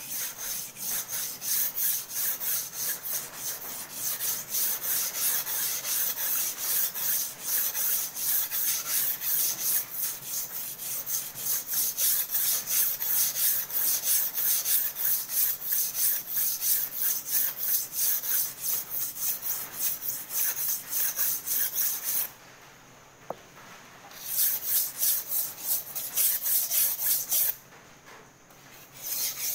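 Kitchen knife blade being stroked back and forth on a wet whetstone, a rapid rhythmic scraping of about three strokes a second. The strokes stop twice for a second or two, as the blade is lifted and turned, then start again.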